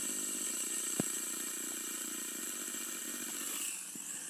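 Two ball-bearing fidget spinners whirring as they spin down on a hard table, a steady buzzing hum, with one sharp click about a second in. The hum weakens near the end.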